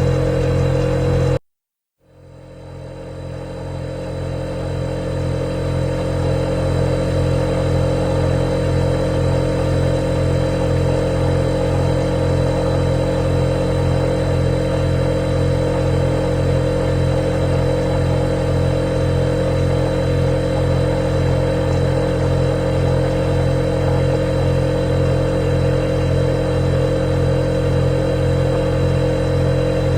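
Refrigerator compressor running with a steady hum. About a second and a half in, it cuts out completely for half a second, then fades back up over the next few seconds.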